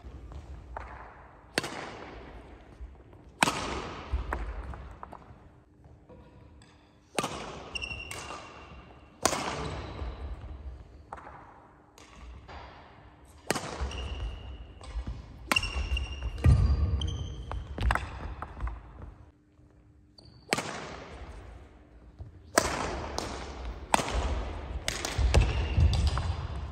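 Badminton rallies: sharp racket strikes on a shuttlecock every one to two seconds, each echoing around a large gym hall, with a few short pauses between points. Short squeaks and low thuds from players' shoes on the wooden court floor come between the strikes.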